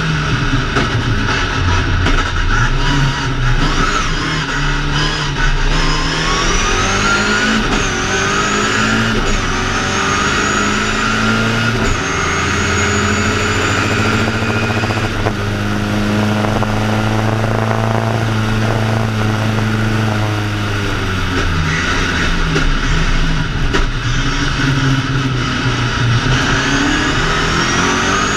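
BMW 2002 ti's four-cylinder engine under hard acceleration, heard from inside the car: the engine note climbs and drops back several times as it revs up through the gears, holds a steadier, lower note for several seconds in the middle, then climbs again near the end.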